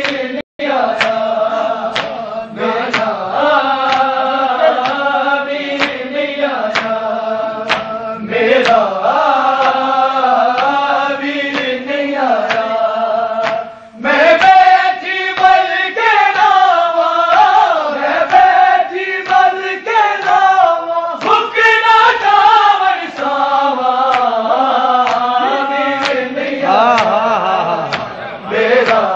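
A group of men chanting a devotional recitation in unison, loud and sustained, with sharp strikes keeping time about once a second; the chant swells louder about halfway through.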